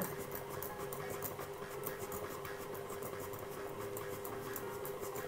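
KitchenAid stand mixer running steadily, its motor humming with a fast, regular ticking as the beater turns through cake batter, mixing it just until combined.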